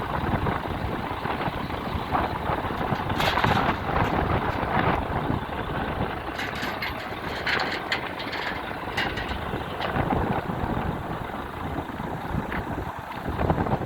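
Heavy diesel vehicle engine running steadily, with a few short knocks or clanks about three seconds in and again in the middle.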